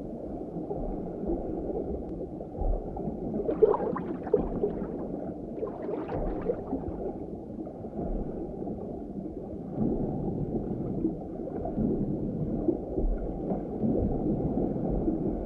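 Muffled underwater ambience: a steady, low, dull water noise, with two brief brighter spurts about four and six seconds in.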